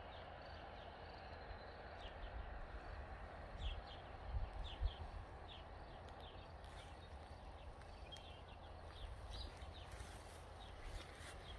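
Outdoor garden ambience: small birds chirping in short, repeated high calls over a steady low rumble of wind on the phone's microphone, with a few low thumps of footsteps or handling about four to five seconds in.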